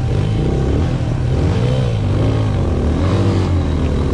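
Motorcycle engine running under load on a rough dirt track, its revs rising and falling again and again as the throttle is worked.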